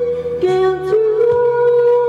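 A woman singing karaoke-style into a handheld microphone over a backing track. She holds a long note, drops to a lower one about half a second in, then comes back up and holds the first pitch again.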